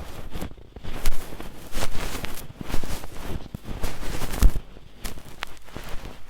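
Ear pick scraping and rustling close in a microphone's ear in quick, irregular strokes with small clicks.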